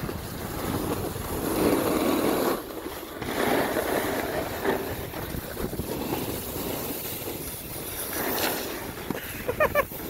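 Snowboard sliding and scraping over packed snow: a rough, continuous hiss that swells and fades as the board turns and skids.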